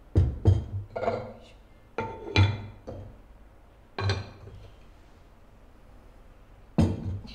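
Black ceramic rice pot and its lid being handled: several knocks and clinks, each with a short ring, with dull thumps as the pot is set down, the loudest in the first half second and another cluster near the end.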